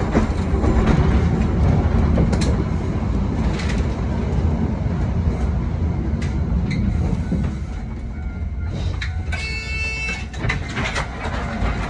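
A 1928 Kawasaki-built wooden tram with nose-suspended traction motors, running along street track and heard from inside the front cab: a steady rumble of motors and wheels on rail with scattered clicks. It gets quieter about seven or eight seconds in. A short ringing tone sounds about nine and a half seconds in.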